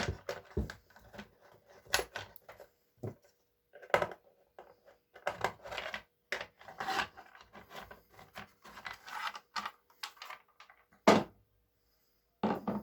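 Plastic cover of a gas chainsaw being worked loose and lifted off: irregular clicks, knocks and scraping of plastic, with two sharper knocks near the end.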